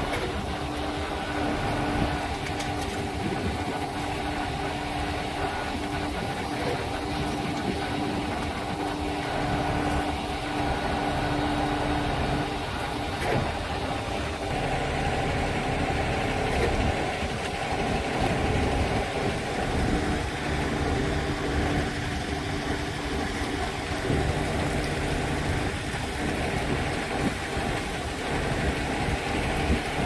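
Concrete pump truck's diesel engine running steadily at idle.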